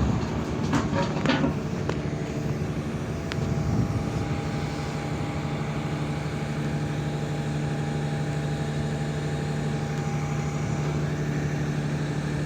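A heavy diesel engine, most likely the excavator's, running steadily at an even speed. There are a couple of short knocks in the first second or two.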